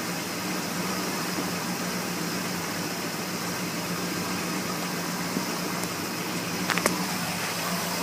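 Ford 400 V8 of a 1979 F-150 idling steadily with fresh oil in it, running smoothly. A couple of light clicks come near the end.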